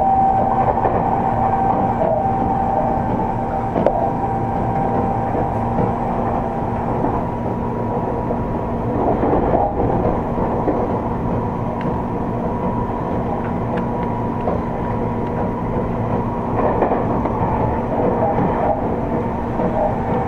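Seibu 30000 series electric train running, heard from inside the car: a steady rumble of wheels on rail with a constant hum of motor and air-conditioning tones, and a few faint knocks from the track.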